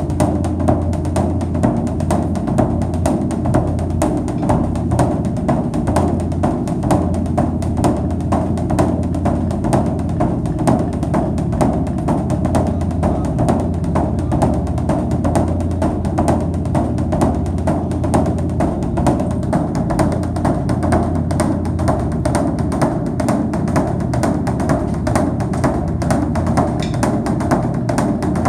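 Background music with a steady, fast drum beat and a strong bass line.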